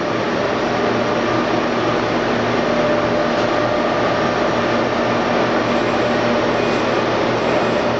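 Steady, loud drone of running industrial machinery, a rushing noise with a low electric hum and a few held tones that do not change.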